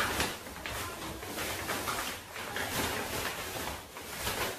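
Rustling and handling noise of a folded camping chair's blue fabric as hands work it, with soft scrapes and brushes throughout and a louder one at the start.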